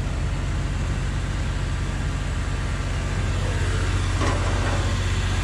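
Hitachi EX3600 excavator's Cummins QSK60 V16 diesel engine running steadily, a loud even drone.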